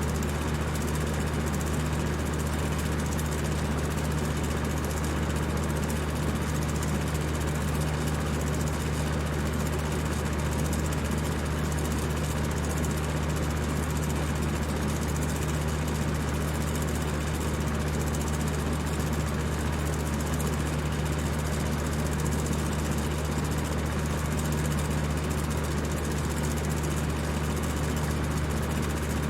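High-speed electric fan running steadily: a constant whir of rushing air over a low motor hum.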